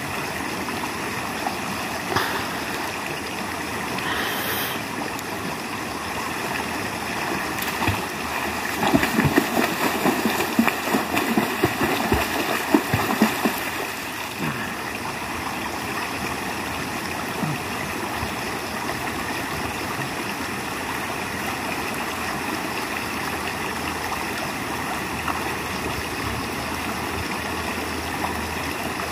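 Shallow river water flowing steadily over stones. For several seconds about a third of the way in, a person swimming in it splashes irregularly and loudly, then the steady flow is heard alone.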